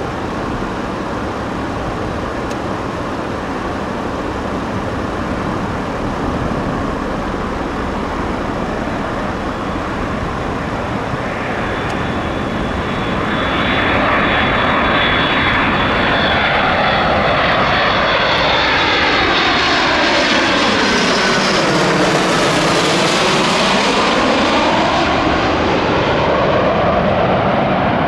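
Boeing 757 jet airliner on final approach with gear down, its engine noise swelling about halfway in as it comes close and passes low overhead, with a steady high fan whine and a sweeping, phasing rush as it goes over.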